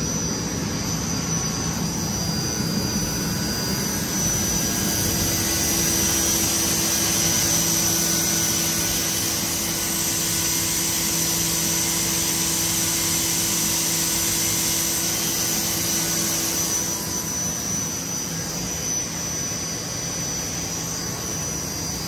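Steady machine noise: a continuous whirring hiss with a few steady tones, a little louder in the middle and easing off after about 17 seconds.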